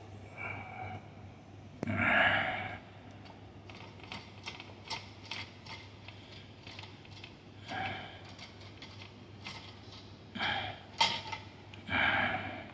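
Small metallic clicks and clatter of the fittings on a high-pressure drain-jetting hose reel being handled, broken by a few short loud breaths close to the microphone, the loudest about two seconds in and near the end.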